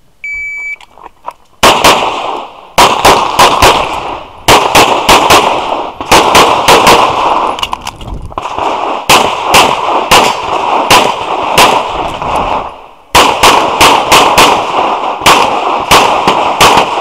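Shot timer start beep, then a semi-automatic pistol fired in rapid strings of several shots each, with short pauses between strings, through to the end.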